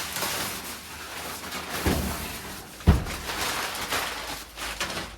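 Packaging rustling and scraping while a small wood-burning stove is unboxed and handled, with two dull knocks about two and three seconds in, the second the louder.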